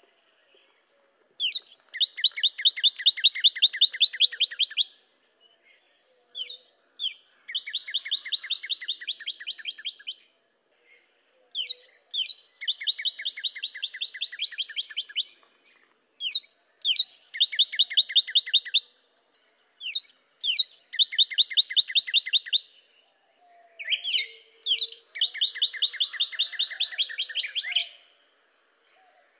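Northern cardinal singing six songs with short pauses between them. Each song opens with one or two quick slurred whistles and runs into a fast trill of repeated notes.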